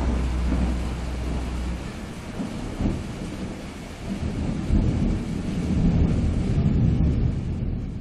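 Thunder rumbling in rolling swells over a steady rain hiss, a storm sound bed. A deep low hum underneath stops about two seconds in.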